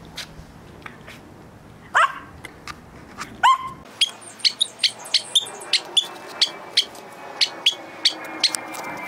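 Pet dogs yipping: two rising yelps, then a quick run of short, high yips at about three a second.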